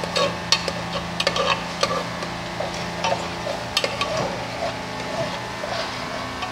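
A spoon stirring curry in a metal pot, clicking and scraping against the pot irregularly, most often in the first four seconds, over a steady low hum.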